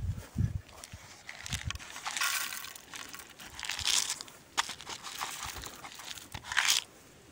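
Black sunflower seeds poured from a plastic container into a wooden tray bird feeder, rattling and rustling in several bursts, with the last sharp pour shortly before the end. A couple of dull thumps come at the start.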